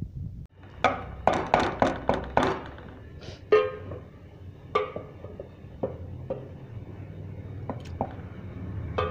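A metal pot lid clanking against a cooking pot. A quick run of ringing knocks about a second in is followed by two more ringing clanks and a few lighter clinks. A steady low rumble comes from the pot boiling on the burner.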